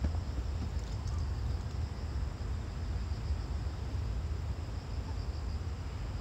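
A steady low rumble, with insects, crickets or similar, chirping in a continuous high band over it.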